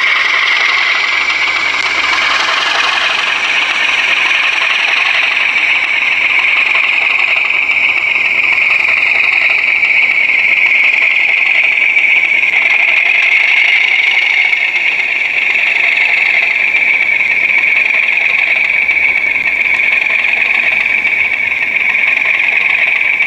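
Recorded diesel engine sound from the DCC sound decoder of a model diesel locomotive hauling a train of open wagons: a steady running engine note played through the model's small speaker, thin and lacking any deep bass.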